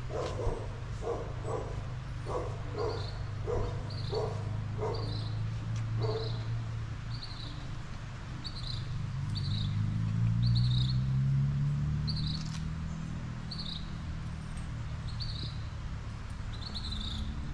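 Animal calls: a quick run of repeated lower calls for the first few seconds, then a long series of short high chirps, evenly spaced at about one every two-thirds of a second. Under them a low rumble swells and fades about ten seconds in.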